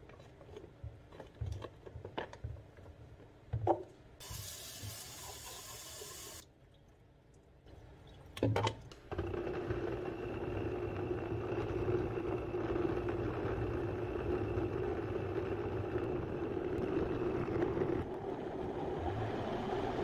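Clinks and knocks of a blender jar being handled with chopped fruit inside, with a short hiss about four seconds in. About nine seconds in a high-speed countertop blender starts and runs steadily, churning the fruit into juice.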